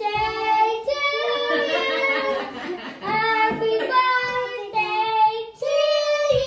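Young children singing a song together, with long held notes and short breaks between phrases.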